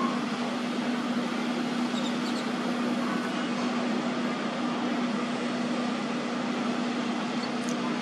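Steady low mechanical hum with one constant drone under an even wash of noise, like distant heavy machinery running.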